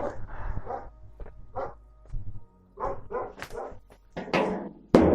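A dog barking repeatedly in short, separate barks, with music playing underneath.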